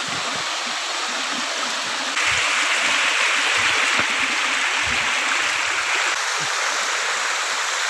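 Waterfall water rushing in a steady hiss that gets louder and brighter about two seconds in.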